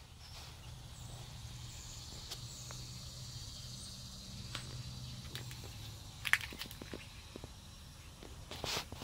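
Quiet background: a steady low hum with a few light clicks and scuffs, one sharper click about six seconds in and another cluster near the end.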